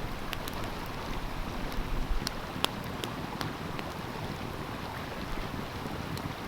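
Wood fire crackling, with a few scattered sharp pops, over the steady rush of a flowing stream.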